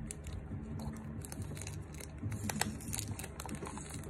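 Clear plastic wrapping crinkling and tearing as it is peeled by hand off a small plant pot: a string of short crackles, a few sharper ones about two and a half seconds in.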